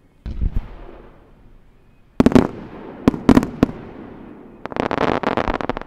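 Fireworks display going off: a low boom just after the start, sharp bangs around two and three seconds in, then a rapid string of crackling reports near the end.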